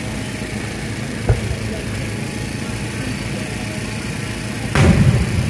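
Fireworks bursting: a short sharp bang about a second in, then a louder, deeper boom near the end, over a steady low background rumble.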